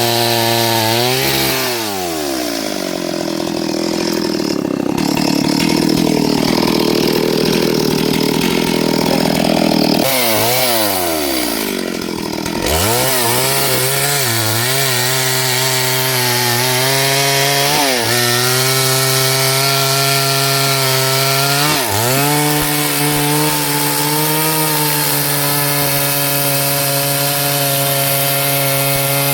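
Small two-stroke chainsaw cutting into wood at full throttle. For about eight seconds near the start the engine pitch sags as the chain bogs down in the cut. It then revs back up and runs high, with a few short dips as the chain bites.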